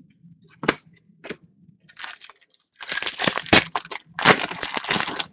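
Trading card pack wrapper being torn open and crumpled by hand: a couple of light clicks, then loud crinkling from about two seconds in, in two long stretches.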